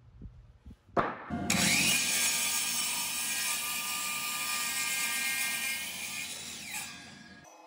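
DeWalt miter saw cutting through a thick wooden block: the motor and blade come in sharply about a second in and whine steadily through the cut, then wind down with falling pitch near the end.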